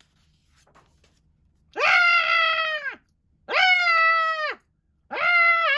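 Three long, acted screams ("Yaaaah!") voiced by a person reading a comic book aloud, each held at a steady pitch and dropping at its end; the first begins about two seconds in, the third near the end.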